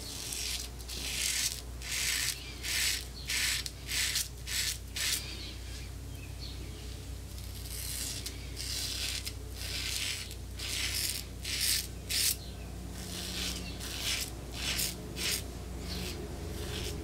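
Rockwell 6C double-edge safety razor on its level 6 plate scraping through a week's stubble under shaving lather on the neck: short strokes about two a second, with a pause of a couple of seconds midway.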